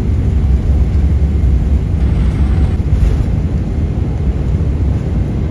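Boeing 777-300ER cabin noise during the takeoff roll: a loud, steady low rumble of the engines at takeoff power and the landing gear rolling on the runway.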